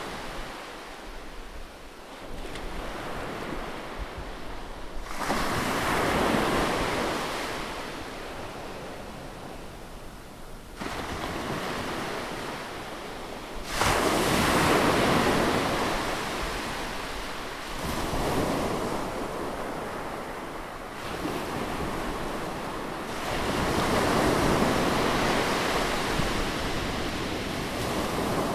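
Sea waves breaking and washing in close by, each wave a surge of rushing noise that swells and fades every few seconds, with the most sudden and loudest break about halfway through.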